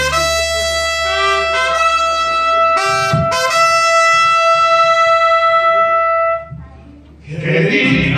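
Mariachi trumpets holding one long high note for about six seconds, with a few shorter notes briefly sounding over it, then cutting off. After a short lull the full mariachi band comes back in near the end.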